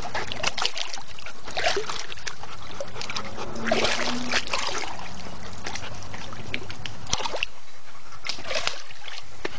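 Water splashing and sloshing in a backyard wading pool as a big dog plunges his head in to fish rocks out with his teeth, in short irregular splashes.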